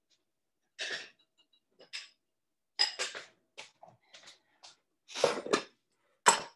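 Kitchen clatter of a bowl being fetched and sliced onion moved into it: a string of irregular knocks, clinks and scrapes, the loudest about five and six seconds in.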